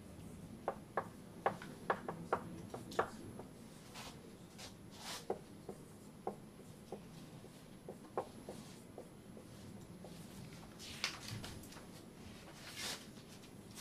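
Writing on a board: a quick run of sharp taps in the first few seconds, then scattered taps and a few longer strokes.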